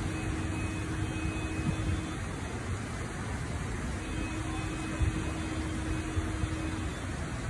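Floodwater rushing down a flooded street in heavy rain: a steady rushing noise with a low rumble. A faint steady hum breaks off about two seconds in and returns about four seconds in.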